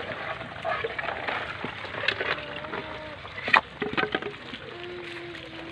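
A few short clicks and knocks, loudest about three and a half seconds in, over faint outdoor background noise, with a faint steady hum starting near the end.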